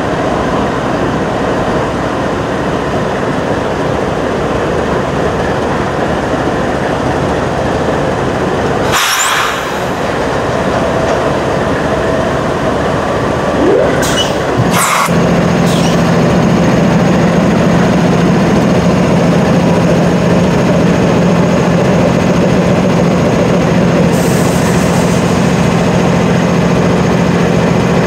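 Covered grain hopper cars of a freight train rolling slowly past on the next track, beside an idling diesel locomotive, with a continuous rail rumble. A few sharp knocks come around the middle, and from about halfway a steady deep diesel engine hum joins in.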